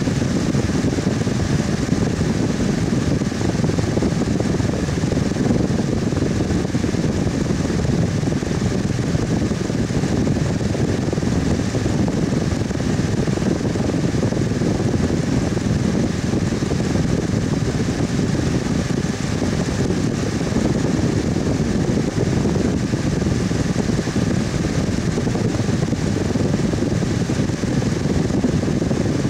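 Electric fan running steadily: a constant airy whoosh centred low, with a faint steady hum.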